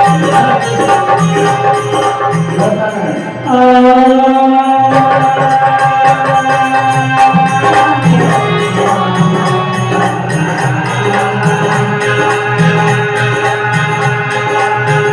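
Indian folk devotional music: long held melody notes over a steady hand-drum beat with jingling percussion.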